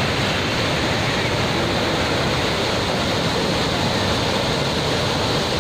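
Floodwater rushing through river rapids: a steady, loud rush of churning, fast-flowing water in a river in spate.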